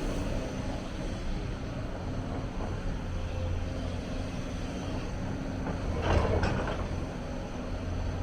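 Hyundai 290 excavator's diesel engine running steadily with a low hum, and a short, louder burst of noise about six seconds in.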